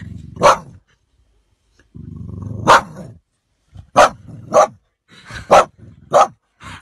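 A dog barking: about seven sharp barks, coming faster in the second half, with a low growl leading into each of the first two.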